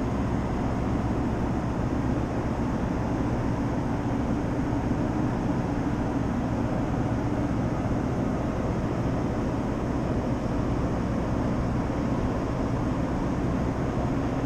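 Steady low drone of a ferry's engines and machinery, without change in level.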